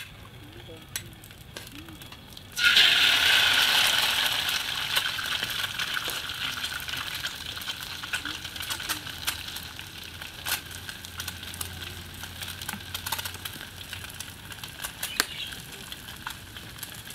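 An egg slid into hot oil in a wok: a sudden loud sizzle a few seconds in that slowly dies down into steady frying, with the oil popping and spitting throughout.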